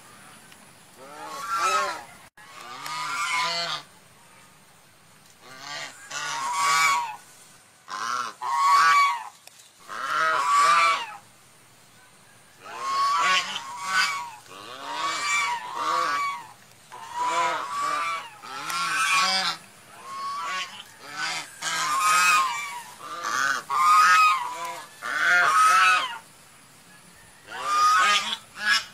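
Swans calling over and over in clusters of repeated calls, with brief pauses between clusters.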